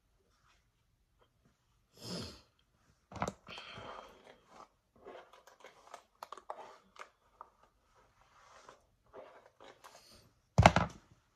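Close-up rustling and crackling of hair and a satin sleeve being handled as the hair is pulled back and tied up, in scattered short bursts, with one louder handling noise near the end.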